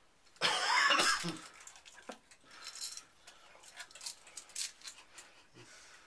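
A short, loud, noisy burst about half a second in, then faint, scattered clicks of small metal shower-hose fittings being handled.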